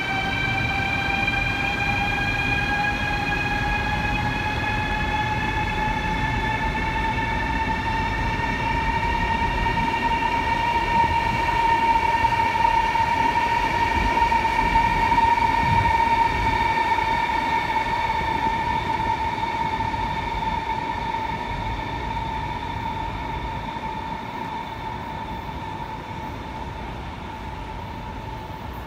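CRH high-speed electric train's traction motors whining as the train pulls through the station. The whine rises in pitch over the first several seconds and then holds steady, over the rumble of the wheels on the rails. It fades over the last few seconds.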